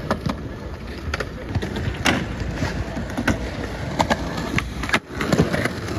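Skateboard wheels rolling over rough, cracked asphalt with a steady grinding rumble, broken by several sharp clacks and knocks of skateboards. The sound drops out briefly about five seconds in.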